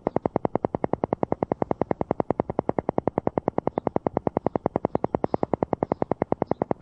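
Alpha-wave entrainment sound: a synthesized tone pulsing on and off evenly about ten times a second, a steady rapid throb.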